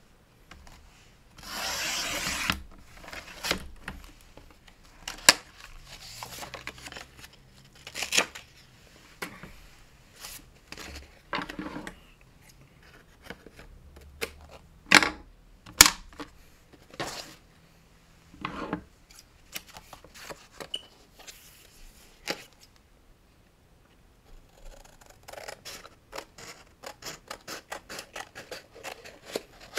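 Paper being handled on a work surface: a second-long rustle about two seconds in, then scattered sharp clicks and rubs. Near the end, scissors cutting through paper in a quick run of short snips.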